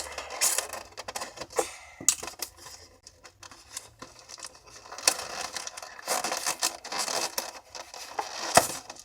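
Toy packaging being handled and pulled at by hand: irregular rustling, scraping and small clicks of plastic and cardboard.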